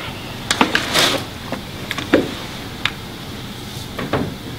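Irregular crackles and soft knocks from a snack packet being handled at a table.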